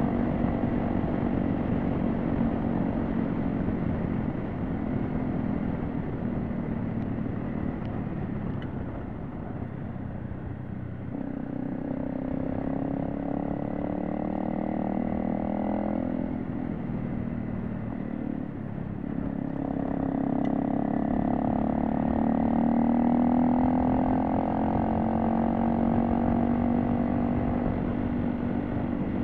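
Honda CRF250L's single-cylinder four-stroke engine running on the move, its revs climbing and dropping back several times as the throttle is worked, over a steady rush of road and wind noise.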